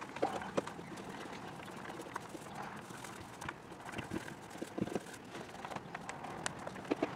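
Scattered light clicks and taps over a faint steady hiss. A small paint roller is being worked across a wooden boat floor and bumped against a deck support while rolling on primer.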